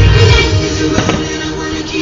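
Music, with a single sharp crack about a second in from a firework bursting.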